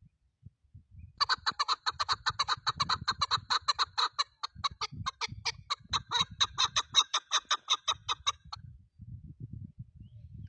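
Chukar partridge calling: a fast, even series of short clucking notes, about five or six a second, lasting some seven seconds and stopping abruptly near the end.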